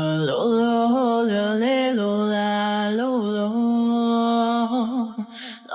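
Background music: a slow, chant-like melody of long held notes that slide up and down between pitches, dropping out briefly near the end.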